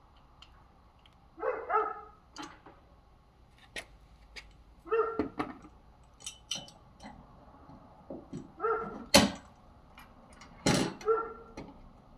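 A dog barking four times, a few seconds apart, with sharp clicks and knocks of parts being handled in between, the loudest knock about nine seconds in.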